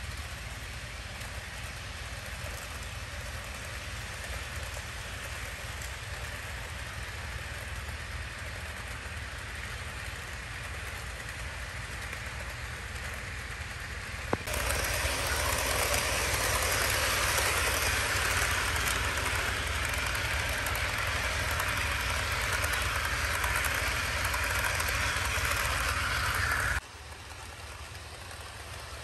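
HO scale model trains running on track: a steady whir of small motors and wheels on rail. About halfway through it suddenly gets louder, and near the end it drops off abruptly.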